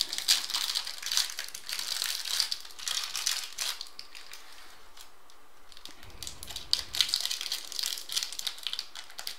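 Plastic wrapper of a trading card pack crinkling and crackling as it is worked open by hand, in bursts with a quieter stretch midway and a short low rumble after it.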